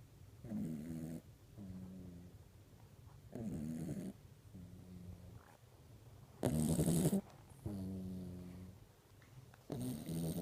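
A sleeping dog snoring in a steady rhythm: four rough, rasping snores about three seconds apart, each followed by a smoother, steady-pitched breath. The snore just after the middle is the loudest.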